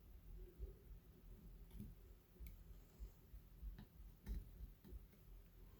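Near silence with a few faint, light clicks and taps scattered irregularly.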